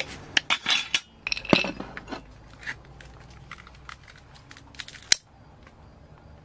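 Glass clinking and rattling as a small glass jar and glass dish are handled, most of it in the first two seconds. Then light handling clicks, and a single sharp click about five seconds in as a long butane utility lighter is sparked.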